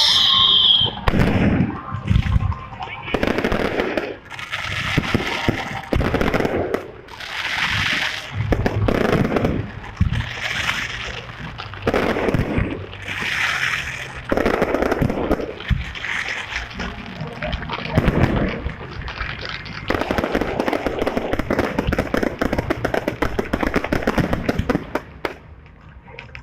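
Aerial fireworks going off: shell after shell bursting every second or two, each trailing into crackling, with a dense stretch of continuous crackling near the end.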